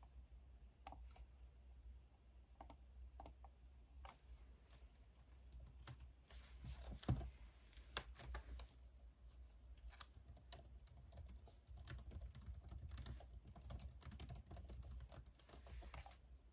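Faint typing on a computer keyboard: irregular key clicks throughout, with one louder knock about seven seconds in.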